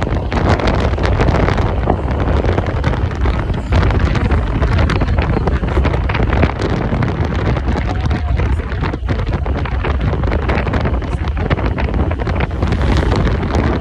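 Heavy wind buffeting the microphone of a phone carried on a moving motorcycle: a loud, steady rush of wind noise.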